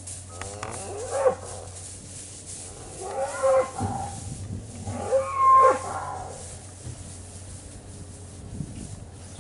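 Shorthorn cattle mooing: three calls about two seconds apart, the last one the loudest.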